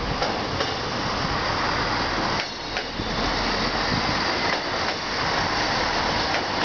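Short diesel passenger railcar passing by, its engine running and wheels rolling along the track in a steady rumble.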